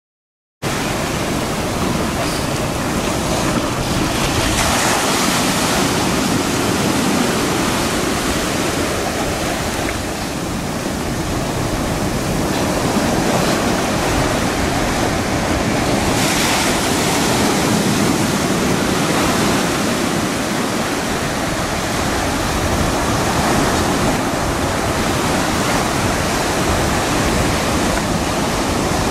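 Ocean surf breaking and washing, a steady rush that starts abruptly about half a second in, with louder surges a few seconds in and again about halfway, and wind rumble on the microphone.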